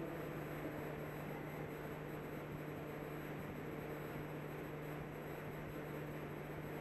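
Low steady electrical hum with hiss: the background noise of the microphone and sound system in an old recording, with no voice.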